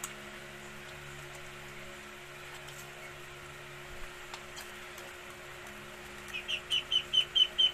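A bird calling near the end: a quick run of short, high, evenly spaced chirps, about five a second. Before it there is only a faint steady background hum.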